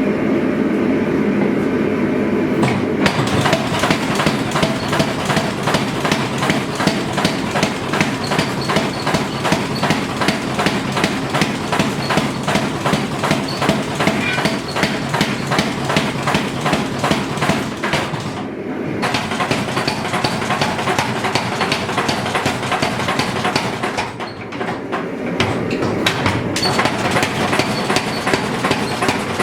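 Power hammer forging hot steel: a steady motor hum, then rapid, evenly spaced blows from about three seconds in, breaking off briefly twice later on.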